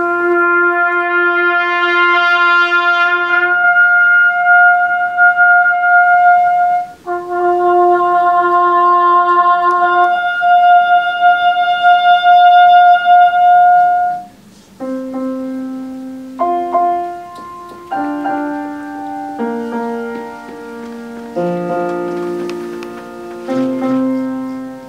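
Trumpets and a grand piano playing live. Long held trumpet notes fill the first half, then a passage of shorter notes comes in over piano chords.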